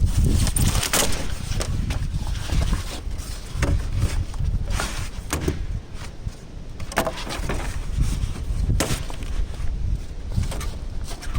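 Foam insulation board being handled and cut to fit a beehive box: irregular knocks, scrapes and rustles over a steady low rumble.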